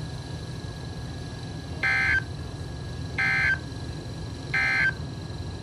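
Emergency Alert System end-of-message data bursts: three short, buzzy digital squawks just over a second apart, marking the end of the tornado warning broadcast. A steady low hum lies underneath.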